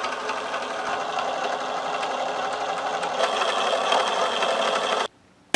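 Small electric pump motor whirring steadily as it pumps Coca-Cola through tubing. It cuts off abruptly about five seconds in.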